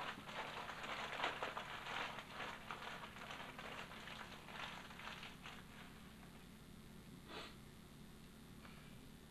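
Dry rustling, loudest in the first two seconds and fading away by about six seconds in, with one short rustle again near the end.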